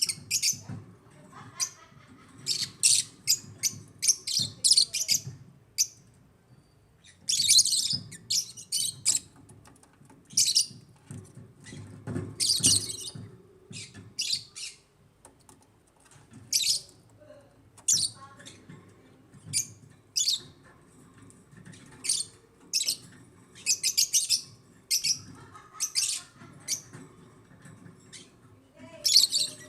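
African lovebirds chirping: sharp, high-pitched calls coming in irregular bursts and clusters, several birds calling over each other.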